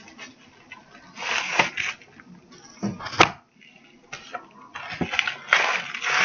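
Plastic bubble mailer rustling and crinkling as a flat eyeshadow palette is handled and slid into it, in two bouts of handling with a sharp click about three seconds in.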